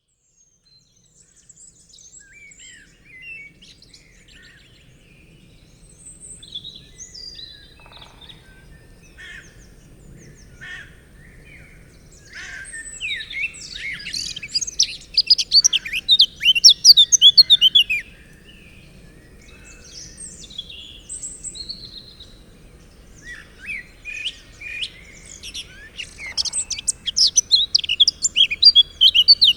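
Several songbirds chirping and singing over a faint low hum, with dense bursts of loud, rapid song about halfway through and again near the end.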